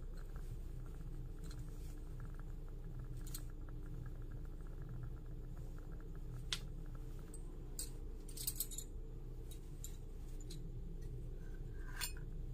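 Steady low hum with a few sharp, sparse clicks and ticks, including a quick cluster of them about eight and a half seconds in.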